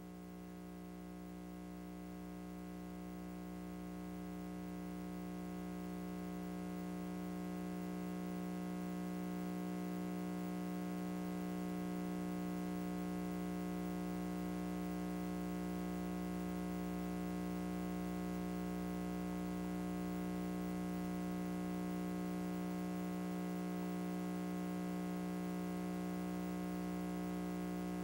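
A steady electrical hum with a buzzy edge, growing louder over the first ten seconds or so and then holding unchanged.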